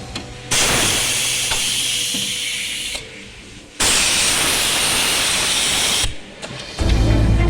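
Two bursts of hissing air, each about two and a half seconds long, switched on and off abruptly. Music comes back near the end.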